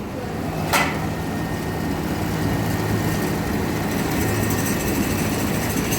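A motor running steadily with a low hum, with one sharp click about a second in.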